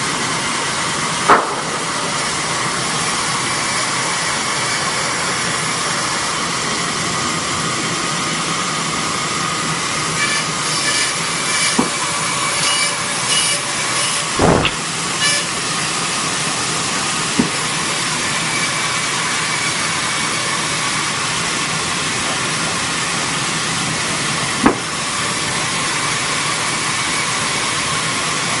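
Machinery running with a steady, loud hiss, with a few single knocks and a spell of clattering about ten to fifteen seconds in.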